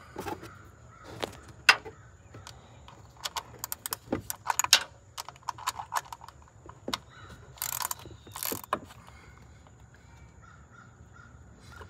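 Small ratchet clicking in short, irregular runs as it tightens an ignition coil pack bolt, with a couple of quicker flurries about two-thirds of the way through.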